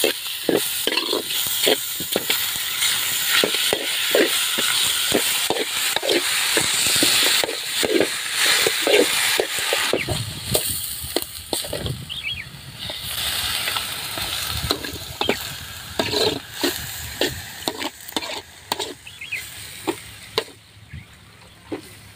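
Raw pork pieces sizzling in hot oil with onions and garlic in a large metal kadai, with a steel ladle scraping and clicking against the pan as it is stirred. The sizzle dies down over the last few seconds.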